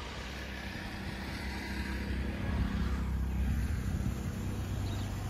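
An engine running steadily with a low hum, growing louder about two to three seconds in.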